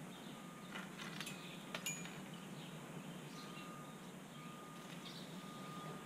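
A large black bird pecking at a pile of dried corn kernels on a wooden deck rail, giving a few sharp taps and clicks between about one and two seconds in. Behind it are faint distant bird chirps and a thin high tone that comes and goes.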